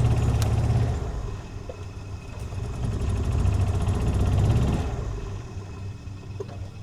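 Golf cart's motor surging twice as it pulls on a strap tied to a hanging tree limb, the second pull longer, then easing to a quieter steady hum.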